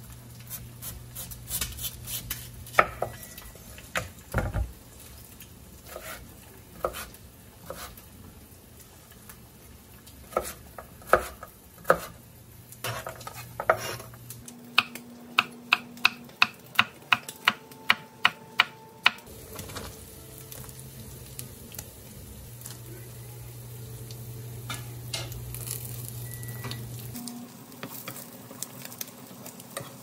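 Knife cutting vegetables on a wooden cutting board: scattered knocks, then a run of about ten quick, even chops with a cleaver, about two and a half a second. After that, food sizzling in a frying pan.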